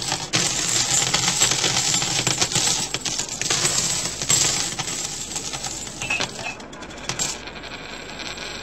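Many coins clattering and jingling as they are thrown and land in a dense shower of clinks, which thins out to a few scattered clicks near the end.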